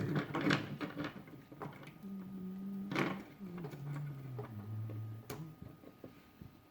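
A person humming a few low notes, the pitch dropping in steps, over small clicks and rustles of parts being handled, with one sharper click about three seconds in.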